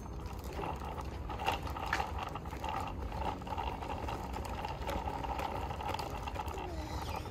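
Child's bicycle being wheeled along, its wheels and hub giving a steady whirring with faint ticking.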